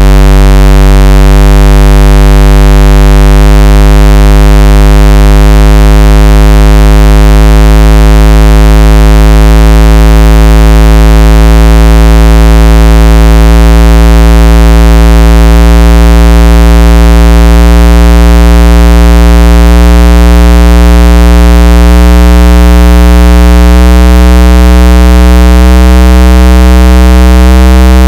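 Loud synthesized low bass test tone from a car-audio sound-quality test disc. It is a buzzy low note with many overtones, stepping slowly upward in pitch about every two seconds.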